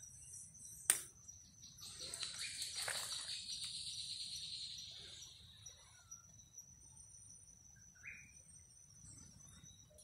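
Forest birds and insects: a steady high whine throughout, a sharp click about a second in, and a rapid high trill that swells from about two seconds in and fades by six, with a few scattered chirps after.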